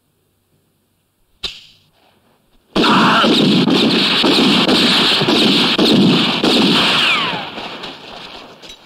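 A single pistol shot about a second and a half in, from a Mauser C96 with a wooden holster-stock. About three seconds in, a loud, long rushing noise starts and fades out over the last two seconds.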